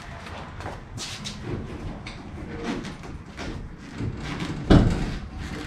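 Clunks and knocks of a floor jack being let down under a car's rear wheel, with one heavy thump about a second before the end.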